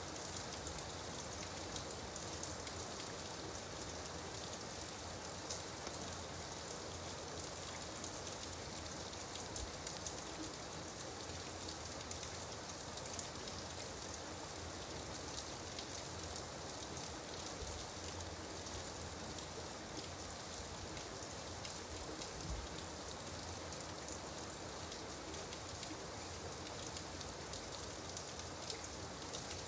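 Gentle rain falling steadily: an even hiss with faint ticks of single drops.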